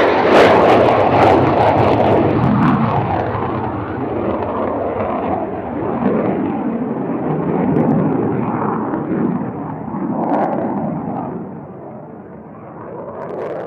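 Jet aircraft engine noise: a loud, dense sound without a clear pitch, loudest in the first few seconds and slowly dying away, with one last brief swell just before it fades out.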